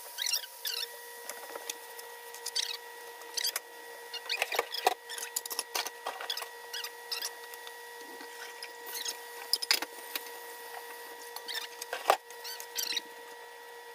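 Vegetables being stirred in a cooking pot: a utensil scrapes and clicks against the pot at irregular moments, over a steady hum.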